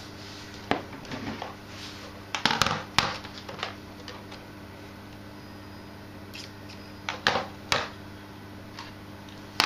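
Handling noise: a scatter of clicks and knocks as a radio-control transmitter is picked up and set down on an opened-up model locomotive, with a cluster of knocks about two and a half seconds in and a pair near the end. A steady low hum runs underneath.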